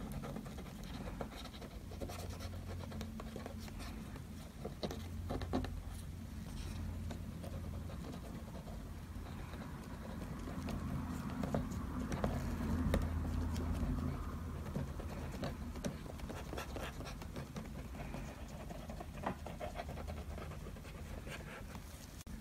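Scattered small taps and scratches of ink being dabbed and worked onto the painting surface, over a steady low hum.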